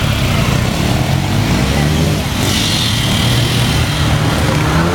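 Several motorcycle engines running as the bikes pull away at close range. One engine's pitch rises near the end as it accelerates.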